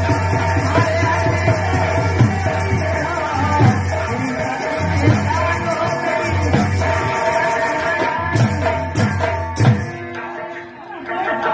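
Nautanki folk-theatre music: hand drums beating under held, organ-like reed tones, with some singing. The music thins and drops briefly about ten seconds in, then picks up again.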